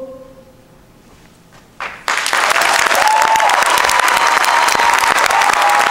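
A choir's held final chord fades out, and after a short hush an audience breaks into loud, sustained applause about two seconds in.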